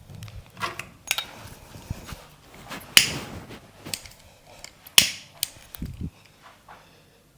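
Hands striking during a head massage. There are two loud, sharp slaps about three and five seconds in, with lighter taps and clicks between them.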